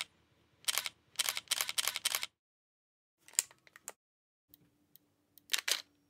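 Single-lens reflex camera shutter clicks: a single click, then a quick run of about six in a row a second or so in, some fainter clicks in the middle, and a louder pair near the end.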